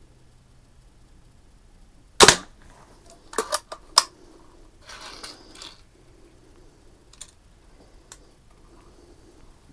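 Daisy 499B spring-piston BB gun firing once with a sharp pop. About a second later come a quick series of sharp clicks and rattles, then a softer rustle.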